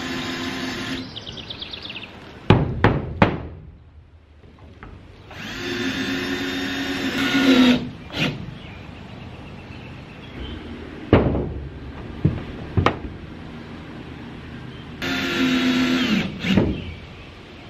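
Cordless drill driving screws through wooden mounting blocks into a corrugated metal roof, in three runs of one to two and a half seconds. Between the runs come sharp knocks and clanks on the metal roof, the loudest a few seconds in.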